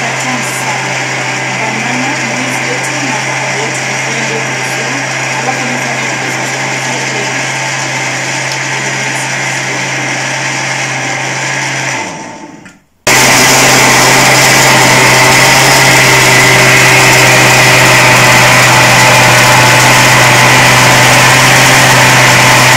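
Countertop blender running steadily, blending avocado, banana and milk into a smoothie. About halfway through the motor runs down and stops for about a second, then starts again louder as the speed knob is turned.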